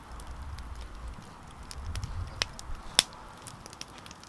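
Small wood bonfire crackling, with a few sharp pops; the loudest comes about three seconds in, over a low rumble.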